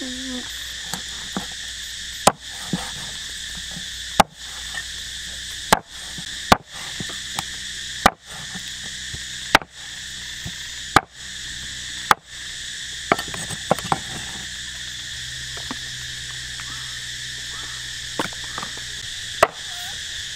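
Chopping with a blade on a wooden board: about nine hard, separate strokes one to two seconds apart, the last a little later, with a few lighter taps in between. A steady high chirring of crickets and other insects sits underneath.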